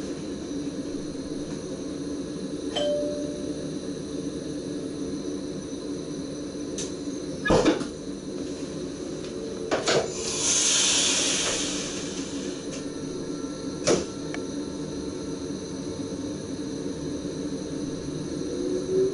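Cab interior of an SGM Sprinter electric train standing at a platform: a steady electrical hum, with sharp clicks and clunks from the driver's desk controls, the loudest about eight seconds in. A hiss of about two seconds comes around the tenth second, and near the end a rising whine begins as the train starts to pull away.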